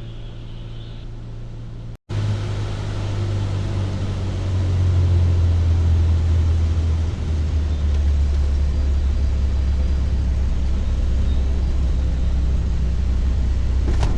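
Light aircraft's piston engine and propeller droning steadily as heard inside the cabin during the final approach and landing. Its pitch steps down a little about seven seconds in, and the sound cuts out for an instant about two seconds in.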